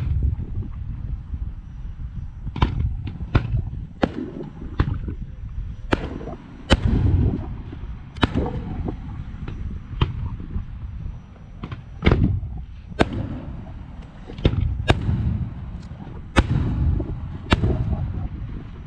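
Aerial firework shells bursting one after another: about fifteen sharp bangs at uneven intervals, each followed by a low rumble.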